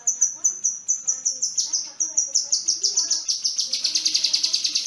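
Kinoi songbird singing a rapid series of high, sharp notes, about five a second, that quickens after about three seconds into a fast, dense trill.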